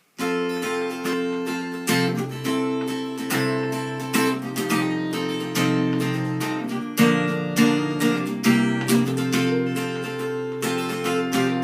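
Acoustic guitar strummed in a steady rhythm, playing the instrumental chord intro of a song, with the chords changing every few seconds.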